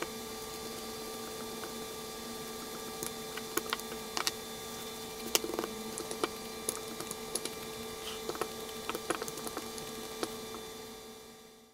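Wooden rolling pin clicking and knocking irregularly against a rolling board as paratha dough is rolled out, over a steady background hum. Fades out near the end.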